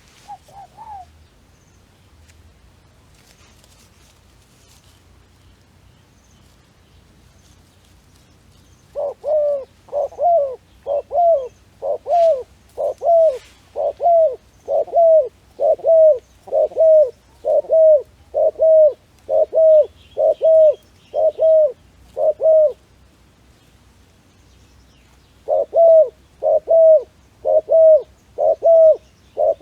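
A dove cooing in long runs of short, evenly spaced coos, about one a second, each note dipping in pitch. A first run of about fourteen coos begins roughly nine seconds in, and a second run starts a few seconds after it stops.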